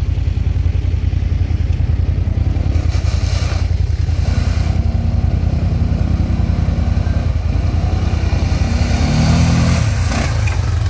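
Yamaha Kodiak ATV engine running hard as the quad spins circles through mud, with a steady low throb and revs that rise and fall, climbing higher near the end.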